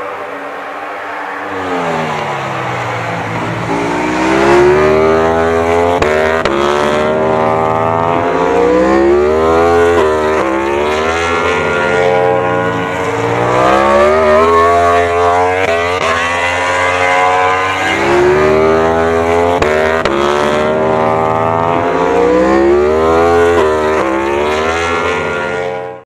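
Yamaha YZR-M1 MotoGP bike's crossplane inline-four engine revved up and down over and over, every two to three seconds. It grows louder about two seconds in.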